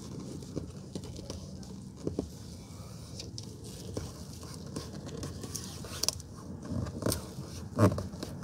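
Fingers pressing and rubbing a leather-like adhesive kick mat onto a plastic car door panel: scattered faint scrapes and light taps, with one louder thump near the end.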